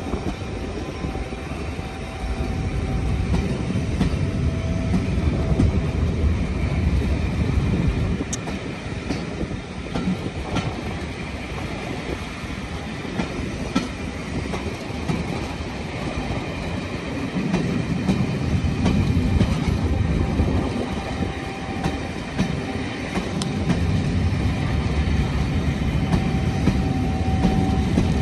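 Passenger coaches rolling past: a steady rumble and clatter of steel wheels on the rails that swells and eases as the bogies go by. A faint squeal comes and goes now and then.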